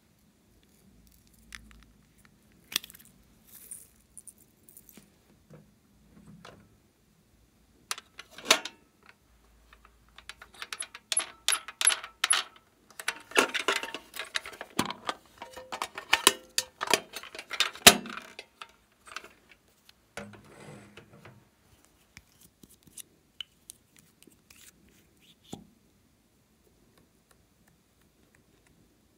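Small hard plastic objects being handled: scattered clicks and clacks, then a busy run of rattling and clacking through the middle with one loud clack near the end of it, then a few faint clicks.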